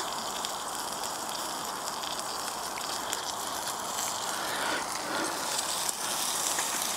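Slices of pork belly sizzling on a small grill over a burning wood-gas camping stove, a steady hiss with a few faint ticks.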